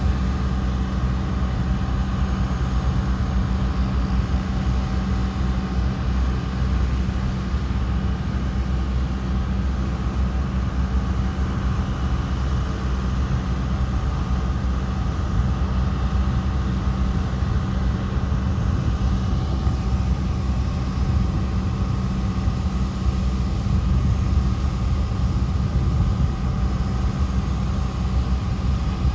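Freight train of empty covered hopper cars rolling past, with a steady rumble of steel wheels on rail.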